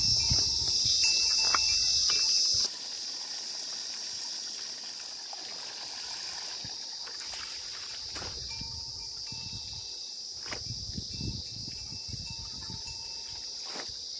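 A steady, high-pitched insect chorus, with water splashing and dripping as wet clothes are lifted and wrung out by hand, and a few sharp knocks. The whole sound drops in level about two and a half seconds in.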